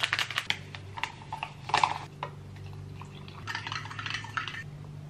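A small plastic sachet being torn open and crinkled in the hands, then a metal spoon stirring in a ceramic mug, scraping and clinking against its sides, about three and a half seconds in. A faint low hum runs underneath.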